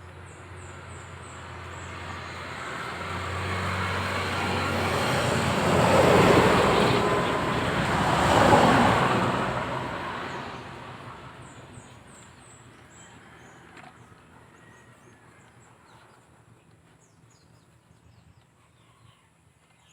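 A road vehicle passing by: its noise rises over several seconds, peaks in the middle and fades away. Birds chirp faintly at the start and near the end.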